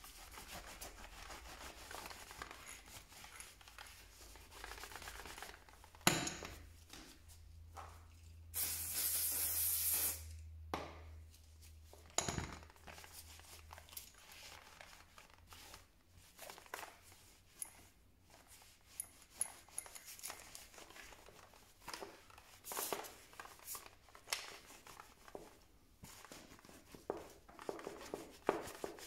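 Hands cleaning a hammer drill: scattered clicks, rubbing and handling noises, with a sharp knock about six seconds in and one hiss of spray lasting about a second and a half shortly after.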